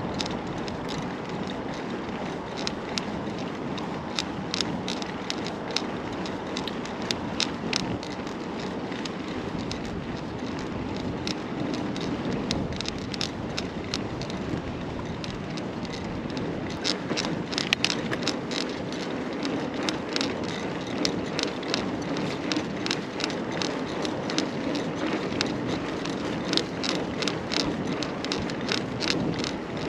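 Carrera Hellcat mountain bike being ridden: a steady rush of tyre noise with frequent sharp clicks and rattles from the bike, more of them in the second half.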